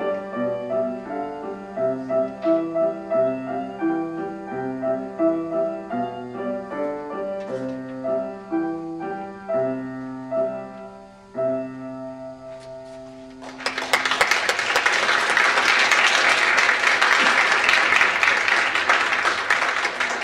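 Grand piano played solo, a rhythmic figure of repeated notes over a bass line, ending on a held final chord. About two-thirds of the way through, the audience breaks into steady applause, louder than the piano.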